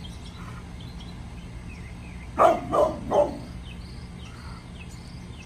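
Pit bull barking three times in quick succession, about two and a half seconds in.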